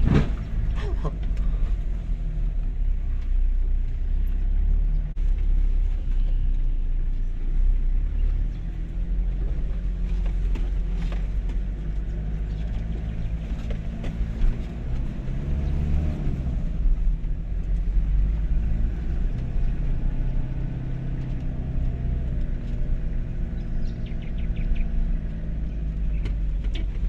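Two-wheel-drive Toyota HiLux engine running steadily as the ute drives over a rough dirt track. The engine note rises and falls about halfway through, and a few knocks come from the bumps.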